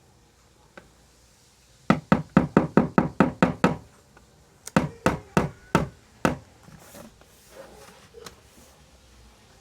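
Rapid knocking: a run of about nine sharp knocks at about five a second, a short pause, then six more, trailing off into a few faint taps.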